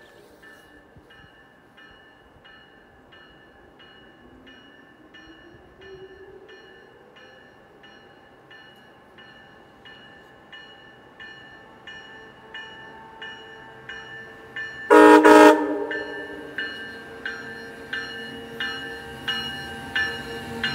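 Amtrak Northeast Regional train approaching behind an ACS-64 electric locomotive: a regular ringing pulse, about one and a half a second, grows louder as it nears. About fifteen seconds in, the locomotive's horn gives one short, loud toot.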